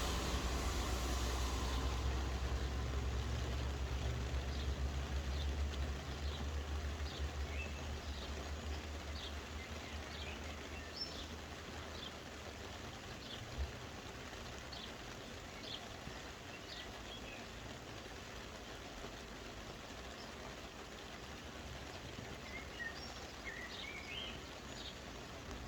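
Soft, steady rain with many short bird chirps from about five seconds in. A low rumble fades away over the first several seconds, and there is a single knock about halfway through.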